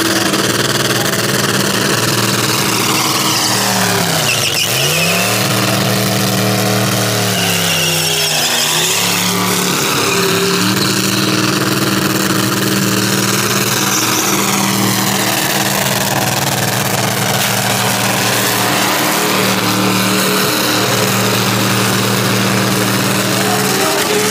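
A car doing a burnout: its engine held at high revs with the rear tyres spinning on the pavement. The revs drop and climb back twice, about five and about nine seconds in.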